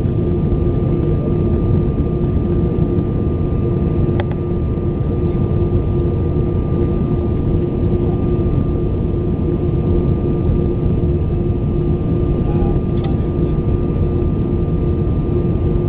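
Steady in-cabin noise of an Airbus A320 in flight: an even rumble of the engines and airflow with a steady hum over it. A faint click comes about four seconds in and again near the end.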